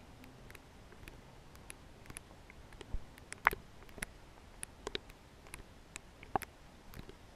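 Scattered faint clicks and taps at irregular intervals over a low hiss, the sharpest about halfway through and another near the end.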